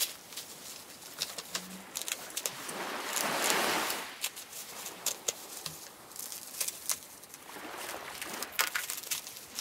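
Swells of rustling with many small clicks and taps, and two brief low hums.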